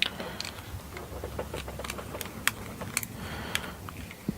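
Small irregular clicks and ticks of a loose 3 mm hex bit turned by hand, snugging up bolts on a metal 3D-printer part.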